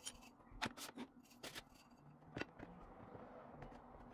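Light handling sounds over a plastic cutting board: a few short clicks and taps of a small glass bottle and pie dough being picked up and set down, then faint rustling.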